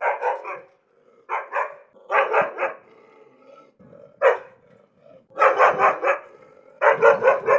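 A dog barking angrily in rapid volleys of several barks each, with short pauses between them and one single bark a little past the middle.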